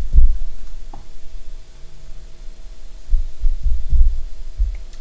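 A deep, throbbing rumble pulsing unevenly, over a faint steady hum.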